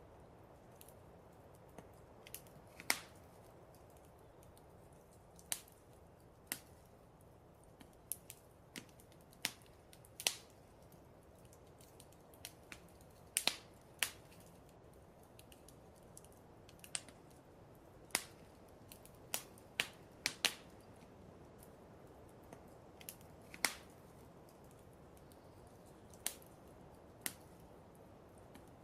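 Wood fire crackling in a fireplace: irregular sharp pops and snaps, some a few seconds apart and some in quick clusters, over a faint steady hiss.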